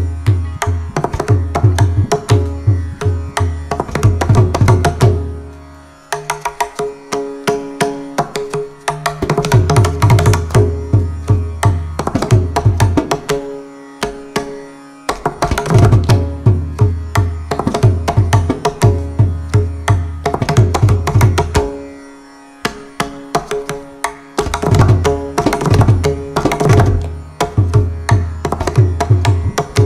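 Mridangam solo (thani avartanam): fast runs of crisp strokes on the treble head over deep booming bass strokes, set in chathurashram, four strokes to the beat. It comes in phrases of several seconds, with short breaks about 6, 14 and 22 seconds in.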